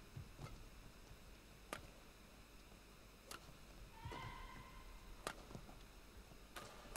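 Badminton rally: sharp racket strikes on the shuttlecock about every one and a half seconds. A short high squeal about four seconds in, likely a shoe squeaking on the court floor.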